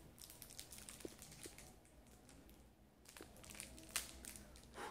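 Faint crinkling and light clicks of small earring packaging being pried open by hand, with a quieter pause partway through.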